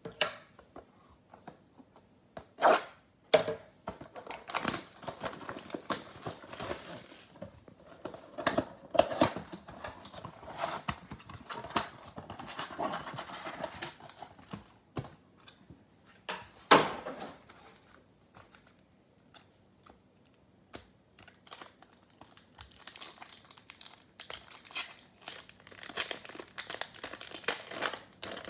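Cardboard trading-card mega box being torn open and handled, with several sharp snaps and rips. After a short pause, a foil card pack crinkles and tears as it is pulled open near the end.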